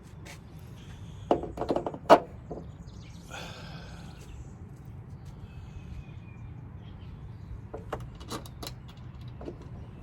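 A handful of sharp clicks and knocks from hand work on a Jeep hood latch and its tools, the loudest about two seconds in. This is followed by a short scraping rustle, and a few lighter clicks come near the end.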